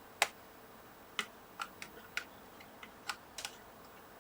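Irregular sharp clicks and light taps of small tools and parts handled on a workbench. About ten come in all, the first the loudest.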